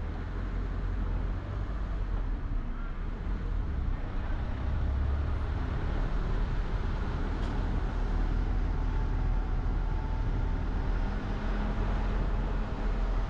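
A car driving in traffic: a steady low rumble of road and engine noise.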